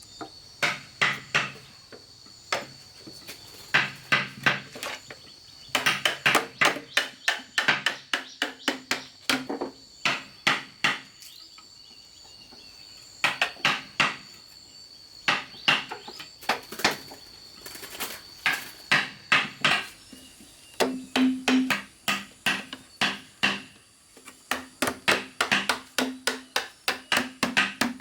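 Rapid repeated blows of a tool on bamboo, several a second, in runs of a few seconds separated by short pauses.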